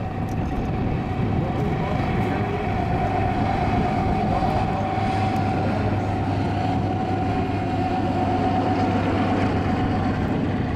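Lockheed P-38 Lightning's twin Allison V-12 engines running steadily at low power as it taxis, a steady propeller and engine drone with a whine running through it.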